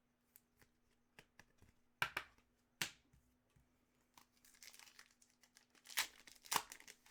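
Upper Deck hockey card pack wrappers being torn open and crinkled, with the cards handled: a series of sharp snaps and clicks and rustling crinkles, busier in the second half.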